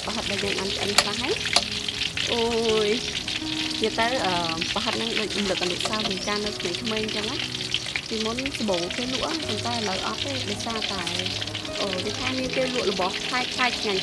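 Parrot-fish balls deep-frying in hot oil in a steel wok, with a steady sizzle, while a metal utensil stirs them and clicks against the wok a few times.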